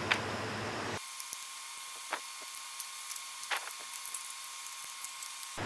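A few faint clicks and light scrapes of a metal hard-drive caddy being pushed into a laptop's drive bay, over a steady faint hiss.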